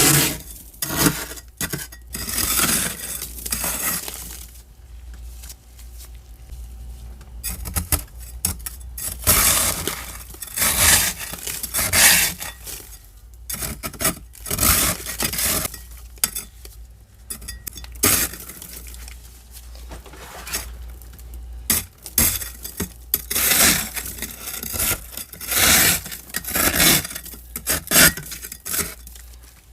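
Thick frost and ice being scraped from the inside walls of a deep freezer in repeated, irregular strokes, each a crisp scrape with short pauses between.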